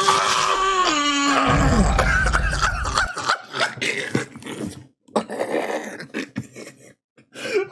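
A sustained, wailing, voice-like cry that drops in pitch and breaks off about a second and a half in. A low rumble follows for a second or two, then scattered knocks and rustles.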